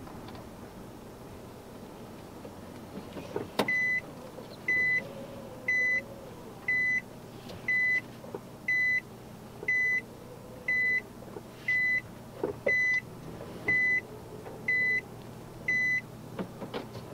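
Car's reverse-gear warning beeper sounding steady single-pitched beeps about once a second, about a dozen in all, as the car is put into reverse to back up and turn around. They start about four seconds in, just after a click, over the low hum of the car.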